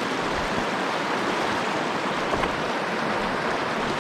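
Trout stream flowing: a steady, even rush of running water.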